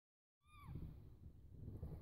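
A single short, high mew from a very young kitten, not yet teething, falling in pitch, about half a second in. A low rumble runs under it.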